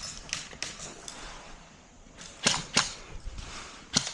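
Airsoft gunfire: a scattering of sharp cracks, faint in the first second, then two louder shots close together about two and a half seconds in and another near the end.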